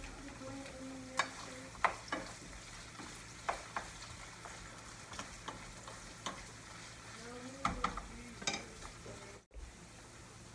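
Pork belly and vegetables sizzling in a frying pan while being stirred, with the utensil knocking and scraping against the pan several times.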